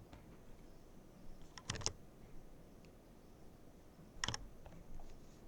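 A few sharp computer key clicks over quiet room tone: a quick pair about a second and a half in and another single click near the end, as when keys are pressed to move a slideshow on.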